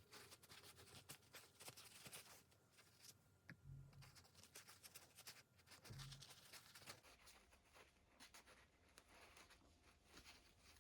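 Faint rubbing and scratching of a paper towel wiping a spherical bearing clean, with scattered small clicks and rustles.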